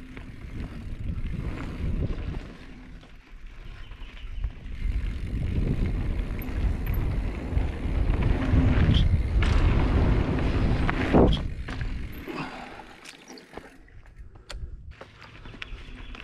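Mountain bike being ridden over a dirt trail: tyres rumbling and the bike rattling, with wind on the microphone, swelling to its loudest in the middle. There is a sharp knock about eleven seconds in, then a few scattered clicks as it quietens.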